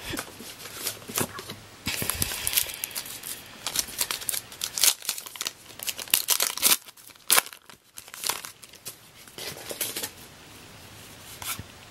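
Plastic wrapper of a Topps Heritage baseball card pack torn open by hand and crinkled, in a quick run of sharp crackles and rips, easing off a little past the middle.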